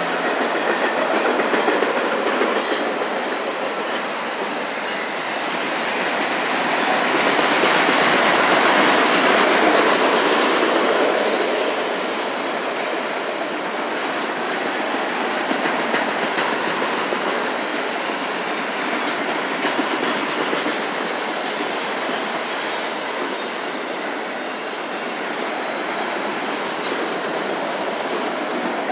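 Autorack freight cars rolling past: a steady rumble and clatter of steel wheels on rail, with brief high wheel squeals now and then. Slightly louder about eight to ten seconds in.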